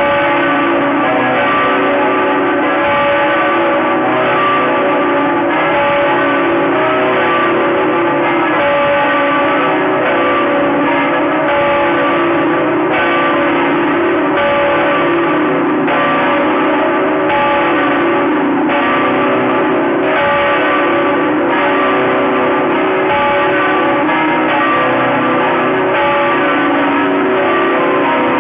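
Bells of Saigon's Notre-Dame Cathedral pealing continuously. A new stroke comes about every one and a half seconds, and each rings on into the next.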